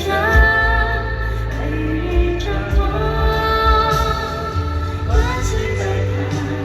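Live concert audio: a woman singing a slow pop ballad in long held notes over a band with a steady bass pulse.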